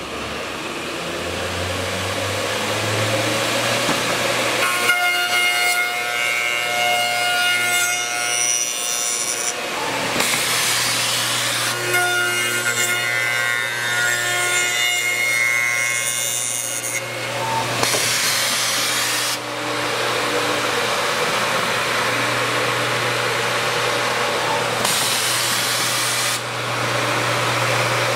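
A CNC tenoning machine's cutter spindles run with a steady motor hum while milling a hardwood block into an oval male tenon. There are two cutting passes of several seconds each, carrying steady high tones, plus a few shorter bursts of cutting noise.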